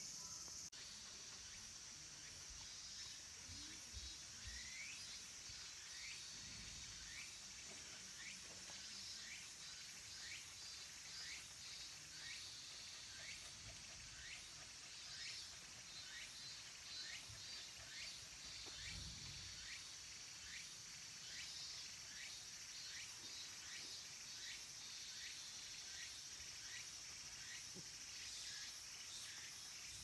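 Cicadas singing in the summer trees, including minmin cicadas and tsukutsukuboshi: a steady high chorus with a short rising call repeated about every three-quarters of a second.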